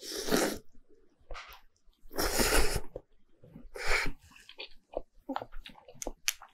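A person slurping thick noodles from a bowl of beef noodle soup, three slurps with the longest and loudest about two seconds in, and soft chewing and mouth clicks between and after them.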